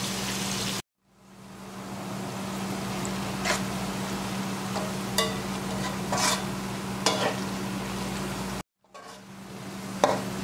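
Sliced onions sizzling in hot oil in a metal pot as they fry to a golden brown, with a slotted metal spatula now and then scraping and clinking against the pot. A steady low hum runs underneath. The sound cuts out suddenly twice and fades back in.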